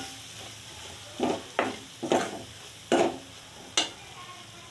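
Steel ladle scraping and knocking against an aluminium kadhai while chilli powder, turmeric and jowar flour are stirred and fried in hot oil, over a faint sizzle. About five separate strokes, spread through the first four seconds.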